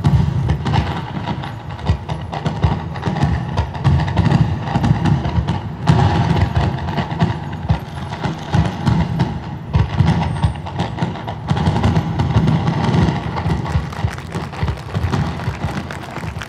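Loud, irregular low thumping with music under it.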